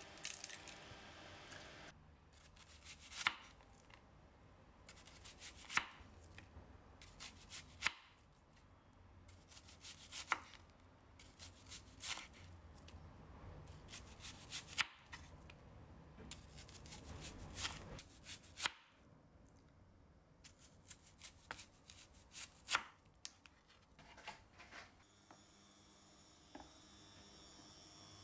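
Chef's knife slicing through a whole onion onto a wooden cutting board, crisp cuts in irregular clusters. Near the end a steady hiss rises as butter starts to sizzle in the frying pan.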